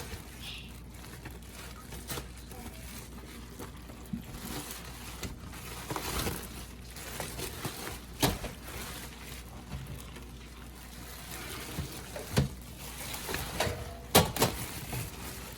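Water trickling and sloshing in a kitchen sink as cooler brine is rinsed out, broken by a few sharp knocks of containers or dishes, the loudest near the end.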